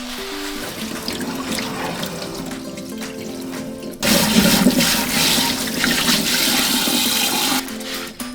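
Water running hard from a tap, starting suddenly about four seconds in and stopping near the end, over background music with a plucked melody.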